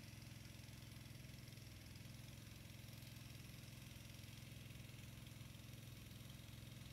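Near silence with the faint, steady low hum of a motor running.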